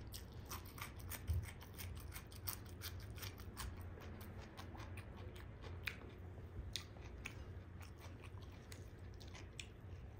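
Close-miked chewing of a raw cucumber stick: a rapid run of short, crisp crunches that thins out in the second half.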